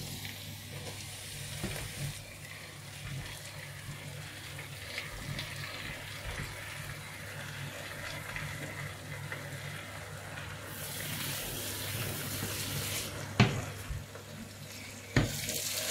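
Chopped mallow leaves poured into a pot of food frying on the hob, with a soft sizzle and rustle over a steady low hum. The hiss grows louder for a couple of seconds past the middle, and there are two sharp knocks near the end.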